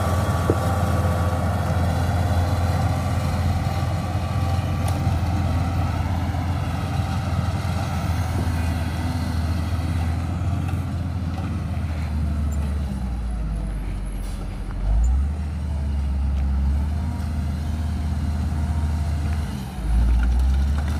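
Caterpillar 140G motor grader's diesel engine running under load as its blade mixes and windrows gravel and soil, a steady low drone with a whine above it. It grows fainter as the machine moves off, with two brief low rumbles, one near the middle and one near the end.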